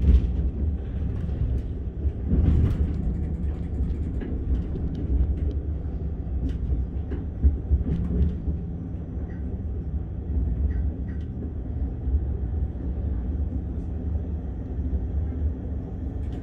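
Passenger train running along the line, heard from inside the carriage: a steady low rumble of wheels on the rails, with a few sharp clicks and knocks scattered through it.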